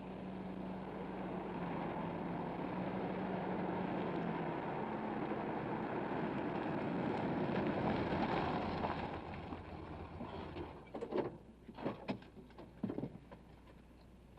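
A motor vehicle running, growing louder to a peak and then dying away, followed by several sharp clunks and knocks.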